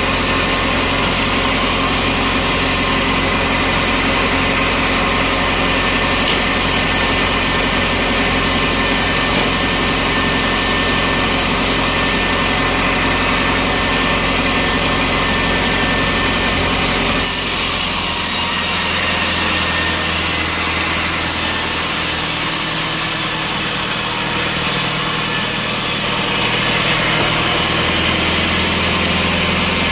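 Sawmill machinery running steadily with an engine-like drone. Its sound changes abruptly a little over halfway through, losing much of its deep rumble.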